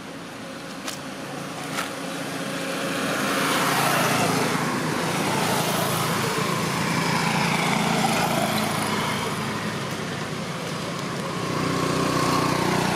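Motorcycle engine passing on the road, growing louder about three seconds in and running on steadily, then easing off and swelling again near the end as traffic passes.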